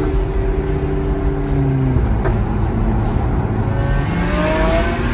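Supercar engine heard from inside the cabin over road and tyre noise. It holds a steady note, drops in pitch about two seconds in as the throttle eases, then rises again as it accelerates near the end.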